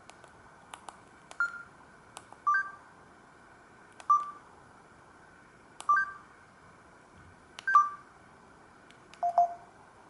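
Short electronic beeps from a Samsung GT-C3752 mobile phone: six in a row, about one every one and a half to two seconds, some as two tones together and one lower in pitch, with faint clicks between them.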